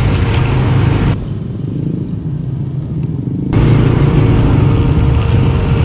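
KTM Duke 390's single-cylinder engine running as the motorcycle rides slowly, with road and wind noise on the onboard mic. The sound goes duller from about one second in until about three and a half seconds in, then returns.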